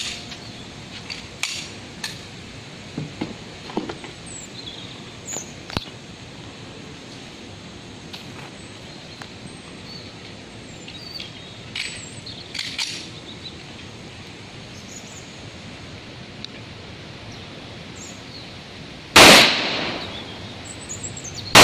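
Pistol shots: two loud reports about two and a half seconds apart near the end, the second right at the close, each trailing off in a short echo. Fainter sharp cracks and clicks come earlier.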